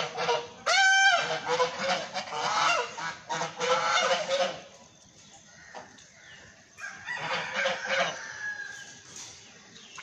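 Flock of white domestic geese honking, with one loud honk about a second in. The calling is dense for the first few seconds, dies down around the middle, then picks up briefly before fading.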